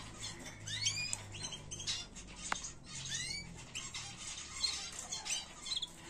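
Domestic canaries chirping: short high curved notes in a few quick runs, with scattered light clicks between them.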